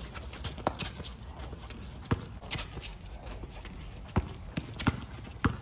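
A basketball bouncing on an outdoor hard court in irregular thuds, the louder ones in the second half, with players' footsteps running on the court.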